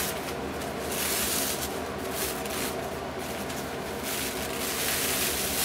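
Thin paper napkin rustling and crinkling in uneven bursts as its three plies are peeled apart by hand.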